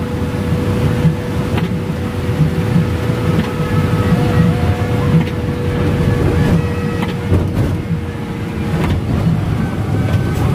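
Cabin noise of a Sinar Jaya coach bus driving in heavy rain: a steady, loud engine and road rumble with a hiss of rain and spray. A faint steady whine runs under it and fades out about eight seconds in.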